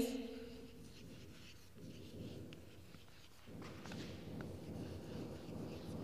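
Chalk scratching on a blackboard as words are written, faint, in two stretches with a short pause between.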